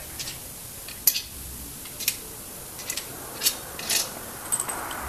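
Short metallic clinks at irregular intervals, about seven or eight in all, as 70 mm intake manifold bolts are dropped into their holes in the intake manifold.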